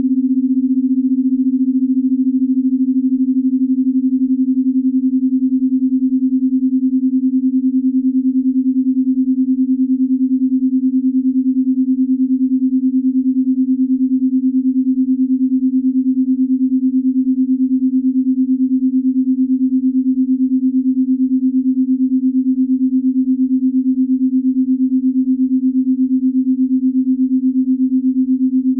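Binaural-beat tone: a steady, low, pure sine-like hum that holds one pitch, with a fast, even waver in loudness.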